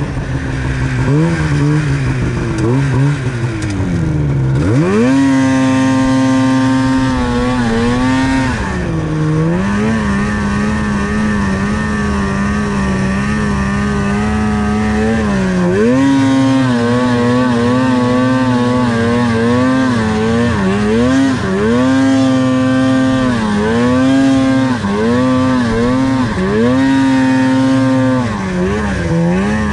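Polaris Pro RMK 800 snowmobile's two-stroke twin engine running under changing throttle, the revs falling away and climbing back again and again. It holds steadier for a few seconds near the middle, then rises and falls in quicker succession toward the end.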